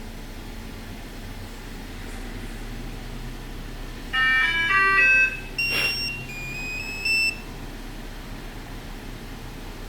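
Electronic chime tones from a car's remote-start alarm system, about four seconds in: a quick run of stepped beeping notes, a single tone with a short hiss, then a rising run of three or four notes. A steady low hum sits underneath.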